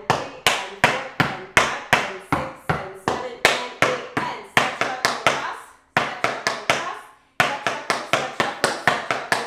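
Metal tap shoes striking a wooden tap board in an even rhythm of sharp taps, about three a second, with brief breaks about six and seven seconds in.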